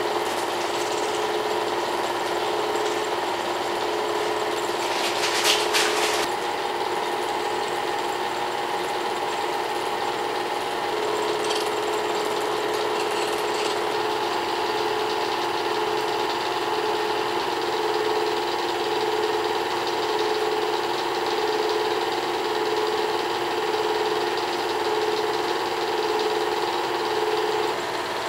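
Small-gauge home-movie film projector running: the steady whir and clatter of its motor and film transport, with a faint pulsing tone about once a second. About five seconds in comes a brief louder noise.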